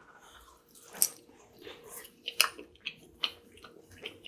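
Close-up chewing and biting of sauced boneless chicken wings: irregular wet clicks and smacks, the sharpest about a second in and again past the middle.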